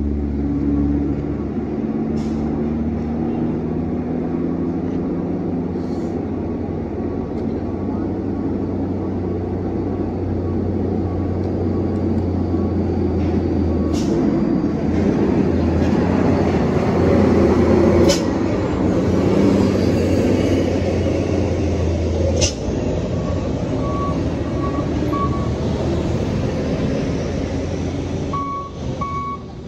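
Diesel truck engines running at idle close by, with a steady low hum and a few sharp knocks. Near the end a reversing beeper starts, sounding in short repeated beeps.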